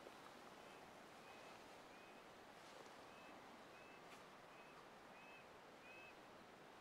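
Faint short high chirps from an animal, about eight brief arched notes at irregular intervals over near silence.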